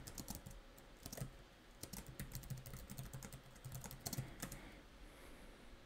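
Faint typing on a computer keyboard: quick, uneven keystrokes in short runs with brief pauses between them.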